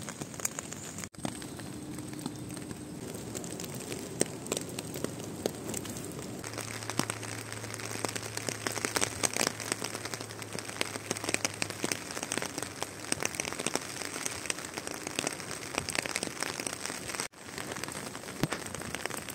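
Spring rain falling: a steady patter of many small drops on wet leaves and ground. It breaks off briefly twice, about a second in and near the end.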